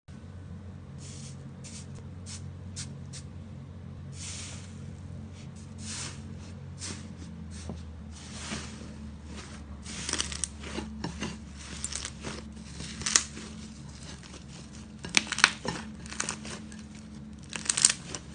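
Yellow iceberg slime's dried crust crackling and crunching as hands press into and knead it, in irregular crackles that grow louder from about halfway. A faint steady low hum runs underneath.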